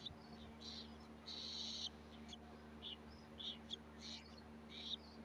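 Cockatiel giving a string of short, raspy high-pitched calls, one of them longer at about a second and a half in: the begging calls of a hungry bird being hand-fed. A steady low hum runs underneath.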